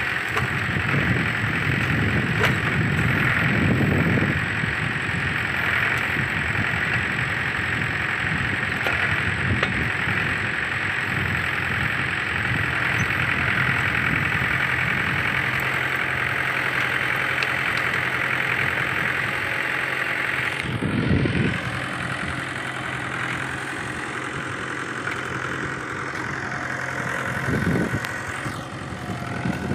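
Tractor diesel engine running steadily while it powers a rear-mounted backhoe digging into brush, with short louder bursts about two-thirds of the way through and again near the end.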